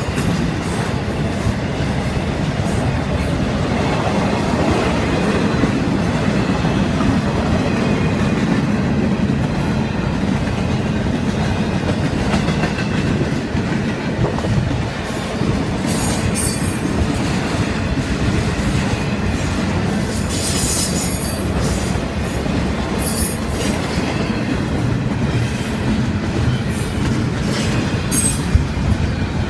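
Norfolk Southern intermodal freight train rolling steadily past, its cars' wheels rumbling on the rails. Short high-pitched wheel squeals come a few times in the second half.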